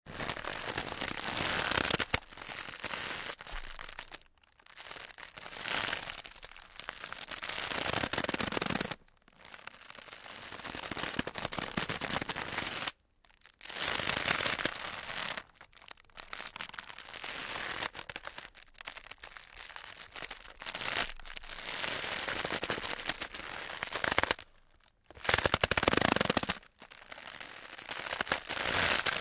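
Wicker basketwork creaking and crackling as it is flexed, in repeated bursts of dense tiny cracks lasting a second or few, with short pauses between them.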